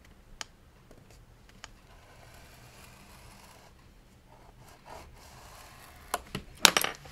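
Paper being scored and handled on a craft table: soft rubbing and scraping of card and tool, a few light clicks, then sharper taps and clicks near the end, the loudest part.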